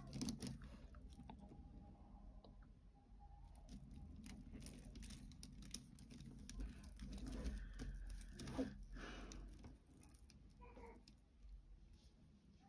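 Faint scattered clicking and rustling of round beads knocking together as hands work thread through a beaded bag.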